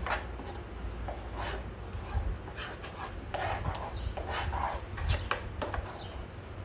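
Metal spoon stirring and scraping a thick mix of flour, warm milk and yeast in a small metal pot: a run of irregular scrapes and light clinks.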